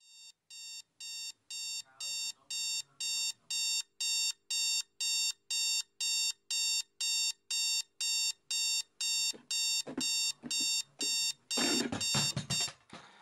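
Electronic alarm clock beeping about two and a half times a second, the beeps growing louder over the first few seconds. Near the end come several knocks and fumbling thuds, and the beeping stops.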